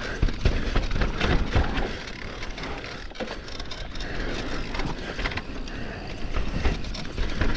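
Electric mountain bike rolling down a rough dirt trail: tyres crunching over the ground and the bike rattling and clacking over roots and bumps, over a constant low rumble.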